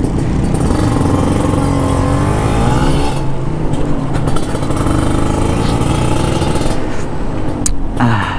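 Kawasaki Ninja KRR 150's two-stroke single-cylinder engine under way. It revs up with rising pitch, breaks off sharply about three seconds in as at a gear change, and pulls on fairly steadily. Near the end the pitch falls steeply as it decelerates.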